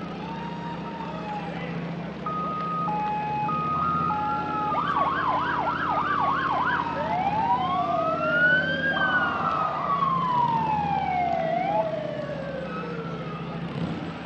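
Fire engine electronic sirens starting about two seconds in: a two-tone hi-lo, then a rapid yelp, then slow rising and falling wails, with sweeps from more than one siren overlapping. A truck engine runs steadily underneath.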